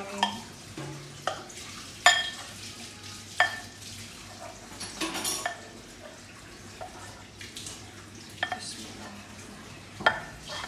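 A spoon clinking against a bowl of pancake batter as it is stirred: about seven sharp clinks at irregular intervals, each ringing briefly, the loudest about two seconds in.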